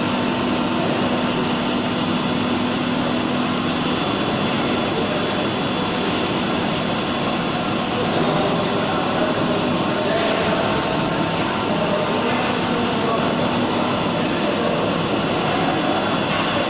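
Haas VM-2 CNC vertical machining center cutting steel: a steady mechanical noise with a thin, steady high whine.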